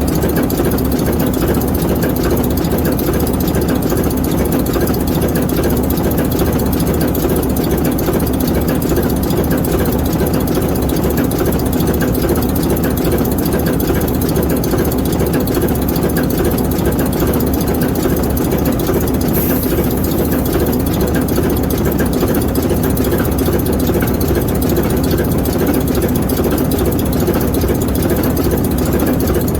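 ALCO S4 diesel locomotive's 539T turbocharged inline-six prime mover running steadily, an even, unchanging engine sound.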